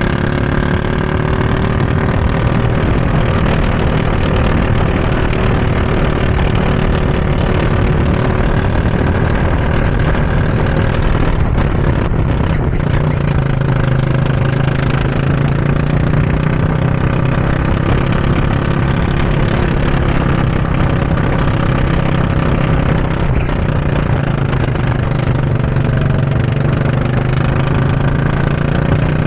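Go-kart engine running hard through a lap, its pitch rising and falling with the throttle through the corners.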